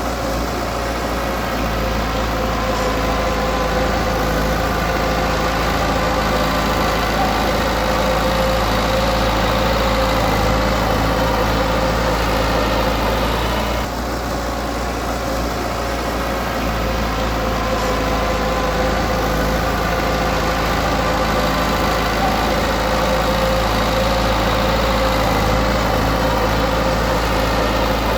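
Diesel engine of heavy earthmoving equipment running steadily, with a brief drop in level about halfway through.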